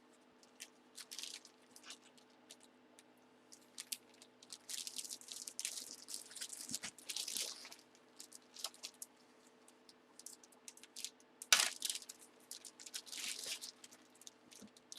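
Plastic packaging and card holders crinkling and rustling in irregular bursts as sports collectibles are handled, with one sharp click about eleven and a half seconds in.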